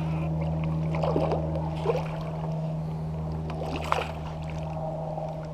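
A steady low hum with a few short faint sounds over it, about one, two and four seconds in.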